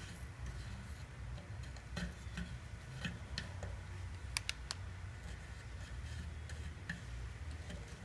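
Scattered light clicks and taps of solder-gun work on a metal motorcycle fuel tank, with two sharper clicks a little past halfway, over a steady low hum.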